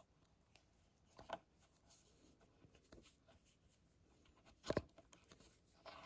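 Faint small clicks and scraping of a long steel M6 screw being turned by hand into a freshly tapped thread in a metal pedal hanger, with one sharper metallic knock a little before the end.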